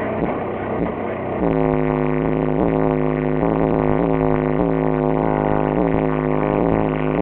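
Bass-heavy music played loud through a car stereo with four Kicker CVR 15-inch subwoofers, heard from outside the car. A rough, noisy stretch gives way about a second and a half in to a steady repeating beat over a deep, constant low bass.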